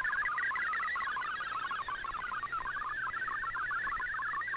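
MFSK64 digital data signal from a shortwave broadcast, heard through an Icom IC-R8600 receiver: a fast, unbroken warble of short tones jumping about in pitch over a background of shortwave hiss. The signal is clear enough to decode without errors.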